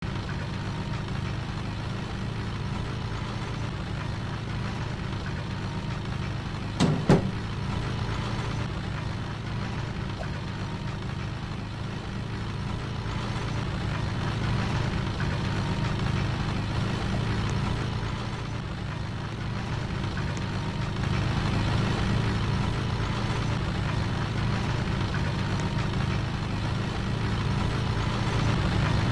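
A boat's engine droning steadily, with a sharp double knock about seven seconds in.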